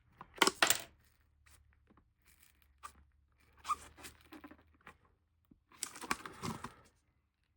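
Hand tools prying and scraping inside an opened iPad Pro, wedged under the glued-down motherboard: two sharp cracks just under a second in, then scattered short tearing and crackling noises.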